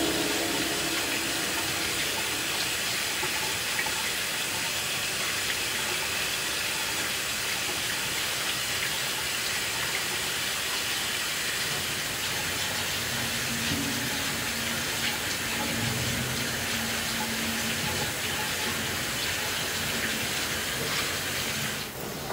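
Water running steadily from a kitchen mixer tap into a stainless steel sink and over a hand held under the stream. The running stops sharply near the end.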